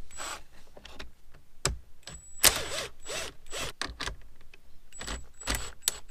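Cordless drill-driver backing out small 7 mm dash screws in about five short spurts, its motor whirring up and down in pitch each time, with a few sharp clicks in between.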